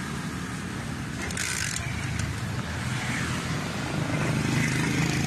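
A motorcycle engine runs steadily under way, with road and wind noise around it. There is a short hiss about a second and a half in, and the engine grows louder over the last couple of seconds.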